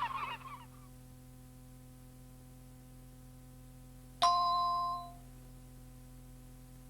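A single bell-like cueing chime strikes about four seconds in and rings out for about a second, marking the start of the next recorded announcement. Before it, a run of honking fades out in the first moment, leaving a low steady tape hum.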